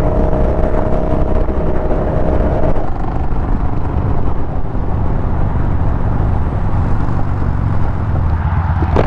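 Yamaha Bolt's 942 cc air-cooled V-twin running under way, with wind rush on the helmet microphone. About three seconds in, the steady engine tone breaks up into a lower, rougher rumble as the bike comes off the throttle and slows.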